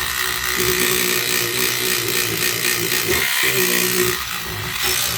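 Battery-powered SonicScrubber cleaning brush running, its small motor buzzing steadily while the bristle head scrubs a tap, with two brief dips in the hum about three and four seconds in.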